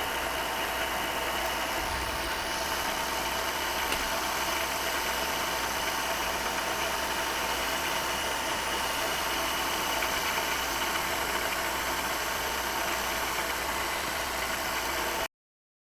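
Milling machine running steadily while an end mill takes a very light finishing pass along the wall of a steel part: a constant whine over a hiss, which cuts off abruptly near the end.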